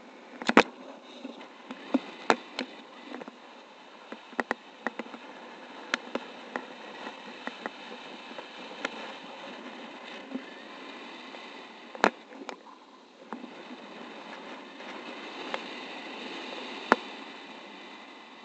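Steady rush of air over a paraglider pilot's gear in flight, broken by irregular sharp clicks and taps, the loudest about half a second in, twice around two seconds, and again around twelve and seventeen seconds.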